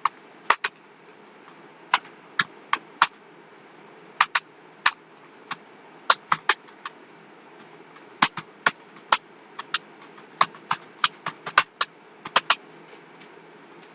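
Computer keyboard keys being typed at an uneven pace: single sharp clicks and short quick runs of keystrokes, with pauses between words. The typing stops near the end.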